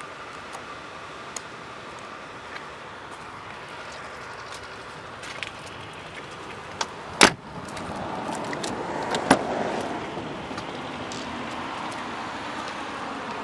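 2006 Range Rover doors being handled: a door shuts with a loud thud about seven seconds in, and a second, sharper door-latch knock comes about two seconds later. Light clicks and handling noises come before them.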